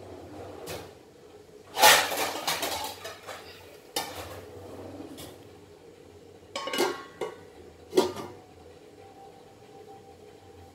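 Pots, pans and cooking utensils clattering: a loud burst of clanking about two seconds in, a single knock at four seconds, then a few sharp knocks and clinks between six and eight seconds.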